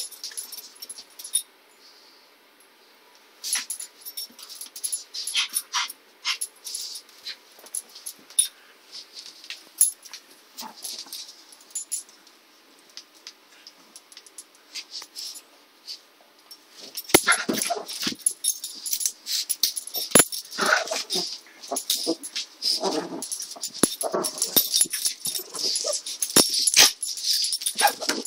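A pug and a small fluffy dog play-fighting: short dog noises and scuffles, sparse at first, then busier and louder from about halfway through.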